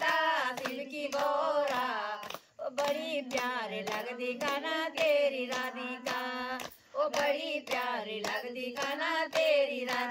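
Group of women singing a Hindi devotional bhajan (kirtan) together, clapping their hands in a steady rhythm to keep time.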